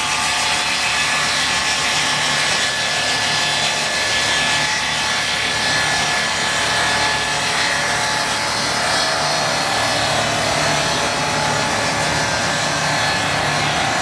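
A combined cant-making and multi-rip circular-saw machine sawing timber, with continuous, loud sawing noise and a steady whine.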